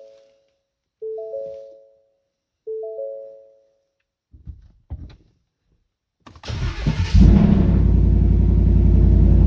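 A three-note warning chime sounds three times, followed by a couple of knocks. Then the 2015 Ford F-150's V8 cranks for under a second, catches and settles into a steady idle.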